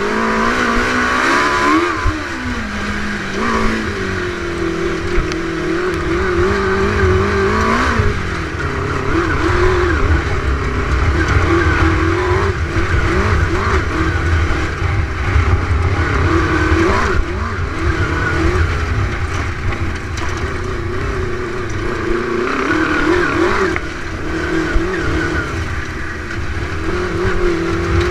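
A Suzuki 600 motorcycle inline-four engine powering a dune buggy at speed off-road, its revs repeatedly rising and falling as the throttle is worked, over a steady low rumble.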